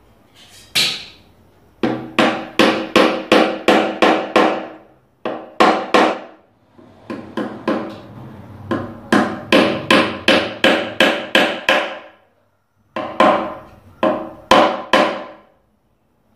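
A small hammer drives wooden wedges into the spindles of a Windsor chair to lock them in place with hide glue. The hammer taps in quick runs of about three blows a second, with short pauses between runs, and each blow has a brief ringing note from the wood.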